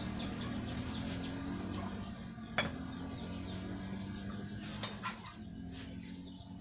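Metal parts or tools clinking sharply a few times, the loudest about two and a half seconds in and again near five seconds, over a steady low hum. Birds chirp faintly near the start.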